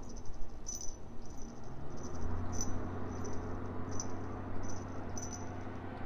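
Short high-pitched insect chirps, about two a second at uneven spacing. About two seconds in, a low steady engine drone comes in underneath and holds.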